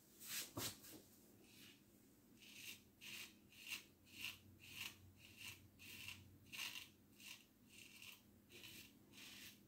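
Faint short scraping strokes of a lather catcher safety razor cutting through lathered stubble, two near the start and then a steady run of about two strokes a second.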